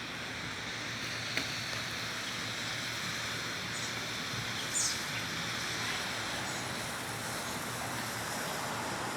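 Several consumer smoke bombs burning together with a steady hiss, with a small crack about a second and a half in.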